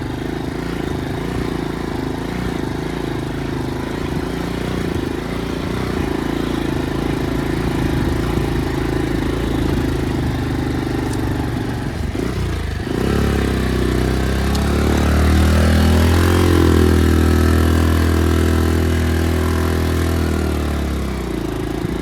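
Motorcycle engine running while riding, steady at first; about halfway through it suddenly pulls harder with a deeper, louder note that rises a little and then eases off.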